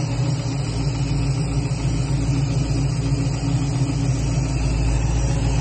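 Ford Performance Boss 347 small-block V8 crate engine idling steadily, with a knock in it. A speed shop found nothing under the valve covers and believes the knock is internal.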